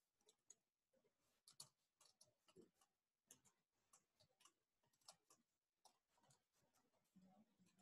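Faint, irregular computer keyboard keystrokes: code being typed, a few clicks a second with uneven gaps.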